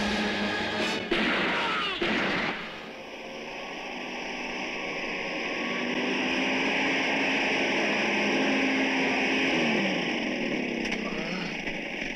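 Film soundtrack gunshots: two sharp shots about a second apart near the start, followed by a long steady rushing noise with a low hum that drops in pitch near the end.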